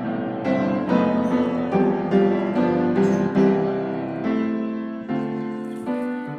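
Piano music: a light melody of quickly struck notes over chords.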